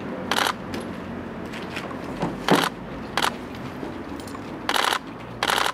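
A series of about five short, sharp clicking bursts, the loudest about two and a half seconds in, over a low steady hum.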